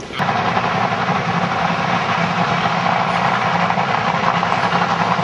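Top Fuel dragster's supercharged nitro V8 idling loud and steady in a pit warm-up. It cuts in abruptly just after the start.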